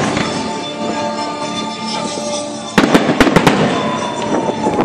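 Aerial firework shells bursting, with music playing underneath: a quick volley of about six sharp bangs nearly three seconds in.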